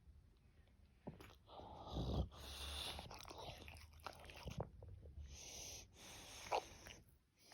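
English bulldog snoring: wheezing, snorting breaths with a low rattle, starting about a second in and rising and falling with each breath.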